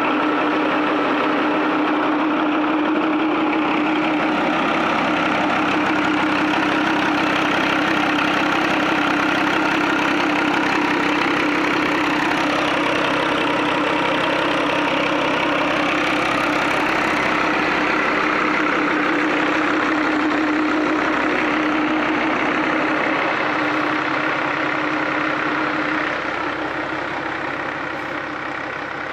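HMT 3511 tractor's diesel engine running steadily, driving a PTO-powered generator, with a steady hum. The sound gets slightly softer over the last few seconds.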